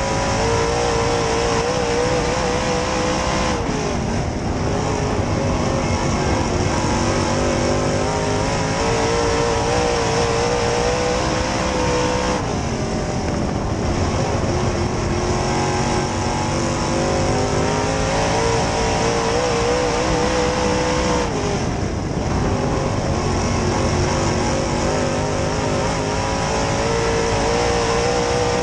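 Dirt-track race car's V8 engine at racing speed, heard from inside the cockpit. Its pitch climbs steadily under throttle and drops away three times, about nine seconds apart, as the driver lifts off the gas and picks it back up through the corners.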